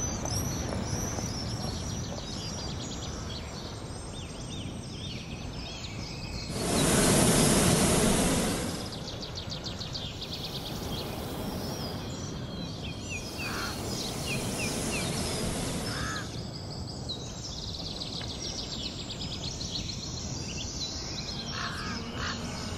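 Outdoor ambience of small birds chirping with crows cawing. About six and a half seconds in, a hot-air balloon's propane burner fires in one steady blast for about two seconds, the loudest sound here.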